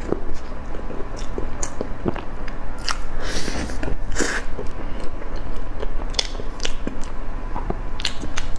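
A person chewing and biting soft food, with wet mouth clicks and smacks scattered throughout and a busier stretch of chewing near the middle.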